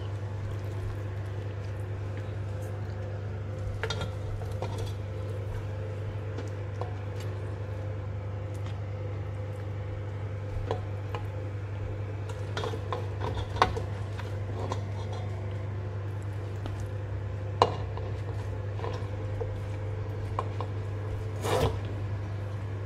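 Utensils and dishes clinking now and then as cooked mutton is served onto a ceramic plate, a few sharper knocks among them, over a steady low hum.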